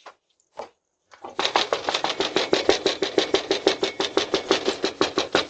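Rapid, evenly spaced clatter of sharp knocks, about ten a second, starting about a second in.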